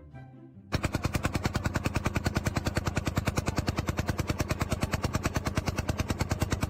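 A machine hammering in a fast, even rhythm of about ten strokes a second, starting abruptly under a second in.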